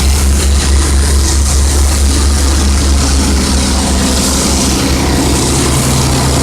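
An engine or motor running steadily: a loud, even low hum with a hiss on top.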